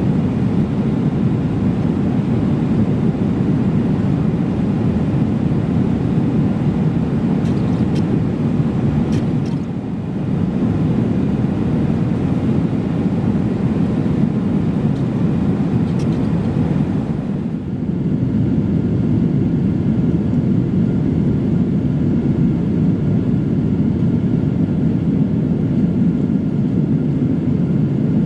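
Steady low rushing drone inside the cabin of a Boeing 777-300ER in flight: jet engine and airflow noise. It dips briefly twice, and there are a few faint clicks.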